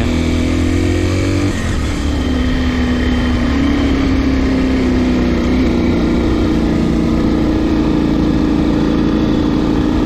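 Zongshen RX1 motorcycle engine running at cruising speed, heard from on board with wind and road rumble; its note drops about a second and a half in, then holds steady and creeps slightly higher.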